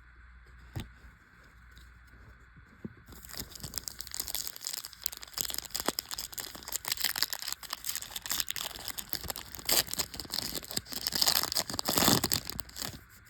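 Foil trading-card pack wrapper being crinkled and torn open, a dense crackling rustle that starts about three seconds in and peaks near the end.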